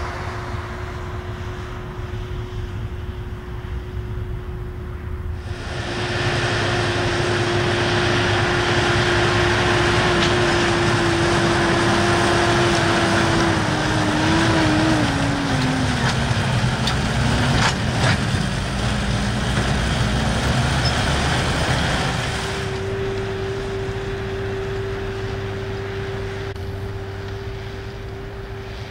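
New Holland tractors running under load, pulling Bergmann manure spreaders with the spreading gear working, a steady whine over the engine. In the middle a louder stretch as a tractor and spreader pass close, their whine falling in pitch.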